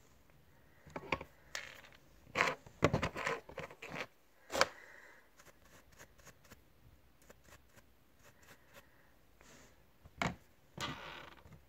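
Hands handling a plastic hair-trimmer body and a brush: a scattering of clicks, taps and short scraping rustles, busiest from about one to five seconds in and again near the end, with a lull in between.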